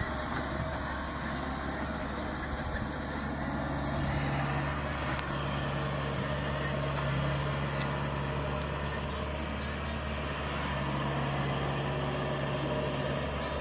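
Kubota DC-70 Plus combine harvester's diesel engine running steadily with a constant low hum.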